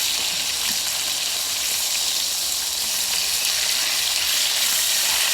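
Ribeye steaks sizzling steadily in oil in a very hot skillet, a bright even hiss: the pan is running a little too hot.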